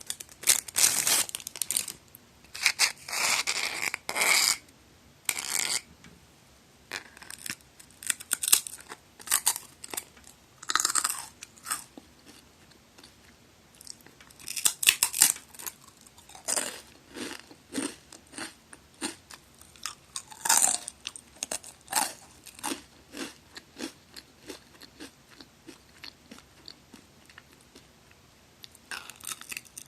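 Close-up crunching bites and chewing of magari senbei crackers. Loud, crisp crunches come in the first few seconds, followed by softer, irregular chewing crackles.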